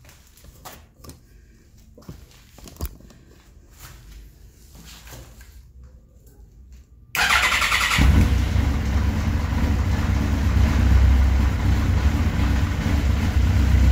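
Suzuki GSX-R1000 inline-four engine started on its electric starter about seven seconds in: a brief crank, then it catches and runs steadily, freshly refilled with oil after an oil and filter change. Before that there are only a few faint clicks.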